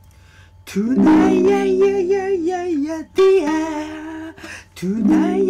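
Music with a singing voice: a wavering sung melody over held lower notes, coming in short phrases that start a little under a second in.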